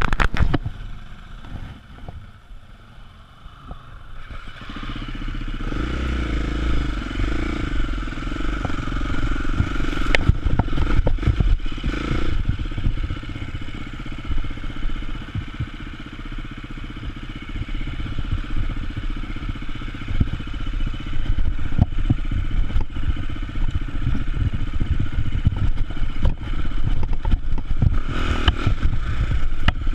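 Enduro motorcycle engine running as the bike rides along a rocky trail, with frequent knocks and rattles over the stones. It is quieter at first and comes up louder about four seconds in.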